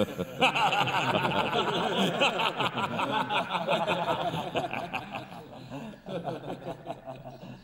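A group of men laughing and chuckling together, many voices at once, breaking out suddenly and dying away near the end.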